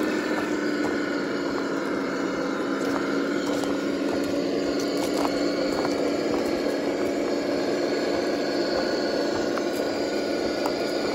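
Traxxas TRX4 RC crawler driving over gravel: a steady hum with scattered small clicks and crunches from the tyres on the stones.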